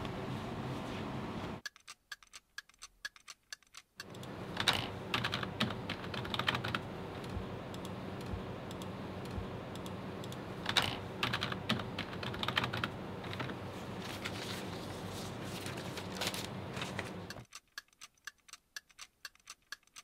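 Typing on a computer keyboard, runs of quick keystrokes over a steady low hum. The hum drops out twice, leaving the keystrokes on their own.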